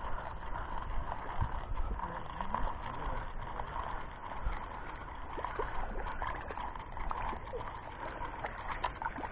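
Steady outdoor hiss with a low rumble of wind on the microphone, and faint scattered clicks of a spinning rod and reel being handled while a small fish is brought in.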